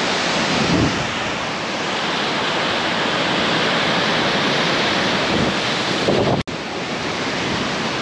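Storm-force wind blowing hard in steady gusts, a continuous rush of noise with wind buffeting the microphone; it breaks off for an instant about six and a half seconds in.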